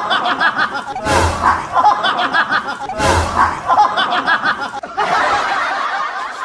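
Laughter and voices, made of a short laughing burst that repeats almost identically every two seconds. About five seconds in it changes to a different, steadier stretch of laughter.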